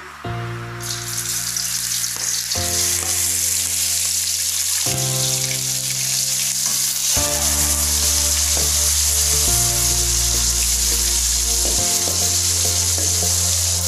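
Salted fish pieces and dried anchovies sizzling in hot oil in a wok, the sizzle setting in about a second in as they go into the oil. Background music with chords changing every couple of seconds plays underneath.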